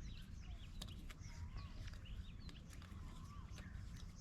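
Several wild birds calling: short chirps and a slurred whistle that comes back every second or two, over a low steady rumble.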